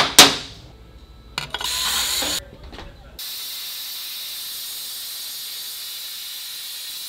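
Metal hand tools clanking on a steel motorcycle lift table, two sharp strikes followed by a short rattle. About three seconds in, a steady hiss begins and holds.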